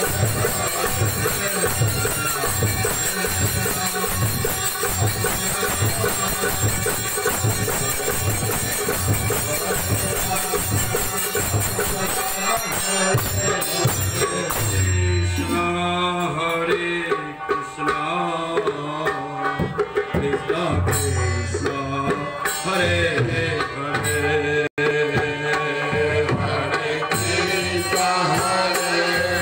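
Kirtan devotional music: a dholak drum beating steadily under a harmonium, with dense high percussion over it. About halfway through the high percussion drops away and the harmonium and singing come forward, then the full percussion comes back near the end.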